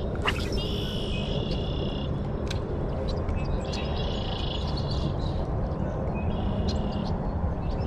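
Spinning rod cast: a quick swish of rod and line about a quarter second in. After it, a high, buzzing trill comes and goes three times, each spell about a second and a half, over steady outdoor noise.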